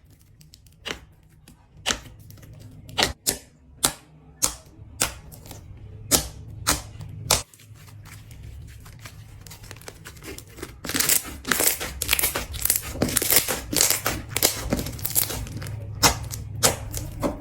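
Slime being squeezed and poked, letting out sharp pops and clicks, a second or so apart at first, then a dense run of crackling pops for several seconds in the second half.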